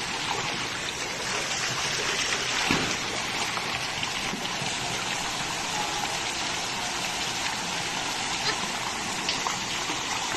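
Steady rush of water in a shallow swimming pool, with children splashing it by hand.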